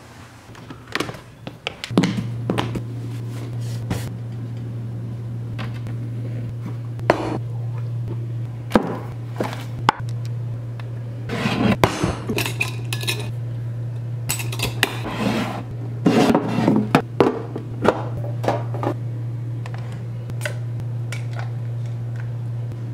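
Crockery and kitchen things being handled on a counter: repeated clinks and knocks of a mug, tin and cup being picked up and set down, over a steady low hum that starts about two seconds in.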